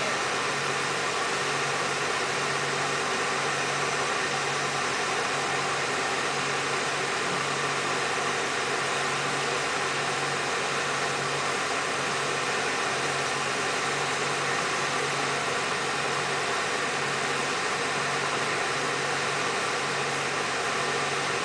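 Steady drone of machinery running continuously, with a slow, even low throb about once a second.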